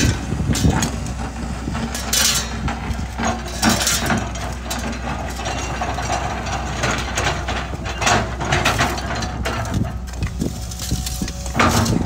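Tracked hydraulic excavator's diesel engine running steadily while its toothed bucket digs into soil, with several short scrapes and knocks of the bucket against earth and stones.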